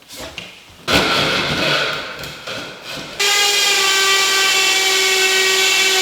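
A sudden knock and scraping about a second in, then an electric power tool, drill-like, runs at a steady high pitch from about three seconds in and stops near the end.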